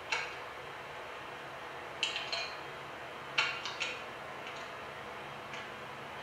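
Sharp metallic clicks and clinks from a scoped hunting rifle's action as it is handled, coming in scattered groups, the loudest cluster about three and a half seconds in. A steady low hum and hiss runs underneath.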